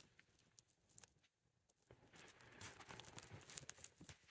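Near silence: faint scattered clicks, then from about two seconds in a soft, uneven rustling and scuffing.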